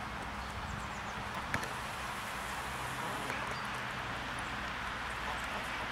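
Steady outdoor background noise, with a low hum that starts about halfway through and a single faint click about one and a half seconds in; no clear calls from the hens.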